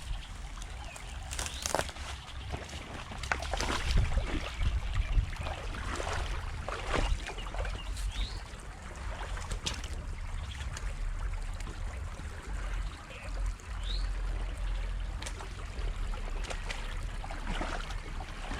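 Creek water trickling and splashing, with irregular clicks and knocks scattered through it and a low steady rumble underneath.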